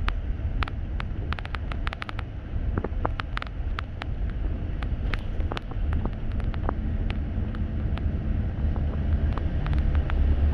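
Double-decker city bus in motion, heard from on board: a steady low rumble of engine and road, getting a little louder about six seconds in, with frequent short sharp clicks and rattles.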